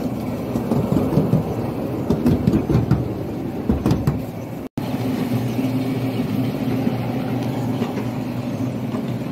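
Small open ride-on park train running along its track: a steady engine hum with the carriages rattling. The sound drops out for an instant about halfway through.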